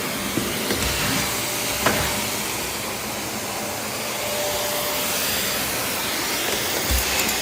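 Vacuum cleaner running steadily while vacuuming carpet, pulling up dry soil, with one sharp click about two seconds in.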